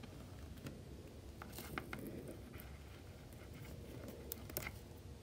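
Faint handling noise of rubber bands being worked on a plastic crochet hook: scattered soft ticks and brief rubbing scratches, over a low steady hum.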